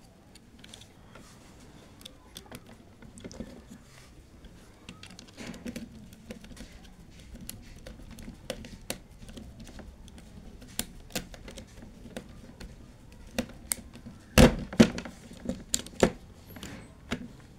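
Small, irregular clicks and taps of a screwdriver and wires on the plastic terminal block of a contactor as a wire is fitted and its terminal screw worked, with a few louder knocks near the end.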